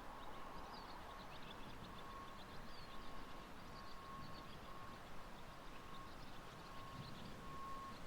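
Faint birdsong: many short, high chirps over a low outdoor rumble, with a thin steady tone that breaks off and comes back in short stretches.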